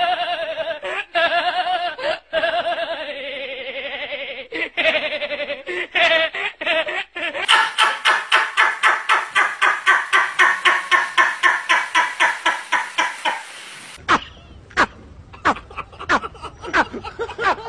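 People laughing hard in turn: a boy's laugh, then a man's laugh in fast, even pulses of about five a second for about six seconds, then an old man laughing in short bursts.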